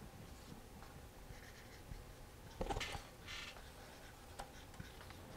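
Faint scratching of an answer being written out by hand, with a short louder cluster of strokes a little past halfway.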